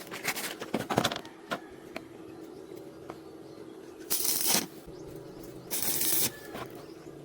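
Arc welder on thin square steel tube: two short crackling, hissing bursts of welding arc of about half a second each, near the middle. A steady hum runs under them, and a few sharp metallic clicks and taps come in the first second.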